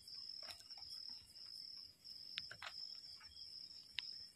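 Crickets chirring in a steady, high, continuous drone, with a few faint short clicks and scuffs of footsteps on a dirt path.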